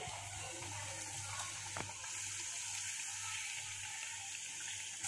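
Mathri dough discs deep-frying in hot oil in a kadhai, a steady sizzle with one light tap about two seconds in.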